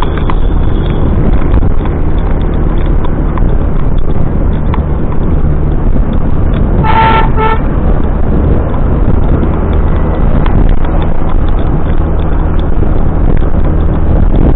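Steady low rumble of a motorcycle ride: engine and road noise. About seven seconds in, a vehicle horn sounds two short toots.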